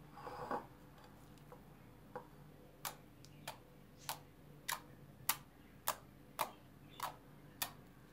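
Fingers poking into a slab of glossy slime, each press giving a sharp little pop of trapped air, evenly spaced at nearly two a second from about three seconds in. A brief soft squish at the very start.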